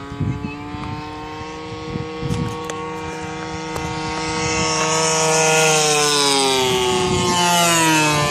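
Engine of a radio-controlled F6F Hellcat scale model on a low pass: a steady droning note that grows louder midway, then drops in pitch as the plane goes by near the end.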